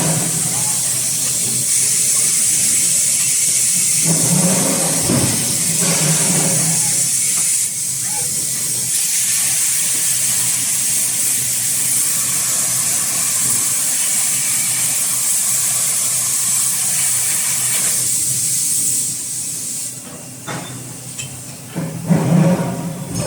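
Steady hiss of compressed air in a hot-forging line, with a low machine hum that comes and goes. The hiss eases off near the end before louder machine noise returns.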